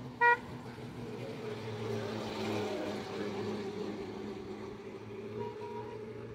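A motor vehicle passes on a road, its engine and road noise swelling and then fading over a few seconds. A short, loud horn beep comes just after the start.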